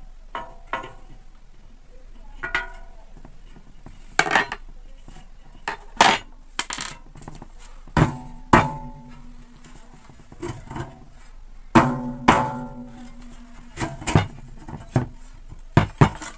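Metal clanks and knocks, a dozen or so at irregular intervals, as the sheet-metal blade of an air-cooler fan is worked loose and pulled off the motor shaft; after several of the louder knocks the blade rings briefly.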